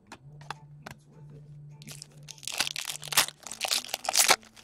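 A few light clicks of cards being handled, then from about two seconds in the foil wrapper of a trading-card pack crinkling and tearing as it is opened.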